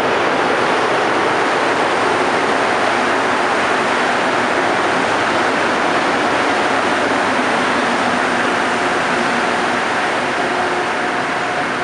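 Montreal Metro MR-73 rubber-tyred train pulling into an underground station, a steady loud rumble of the running train. A steady whining tone sets in about two-thirds of the way through as the train slows, and the noise eases slightly near the end.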